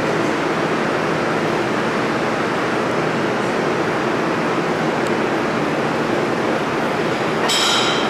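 R160 subway train running away into the tunnel, a steady rushing rumble that fills the station. A brief high-pitched squeal cuts in near the end.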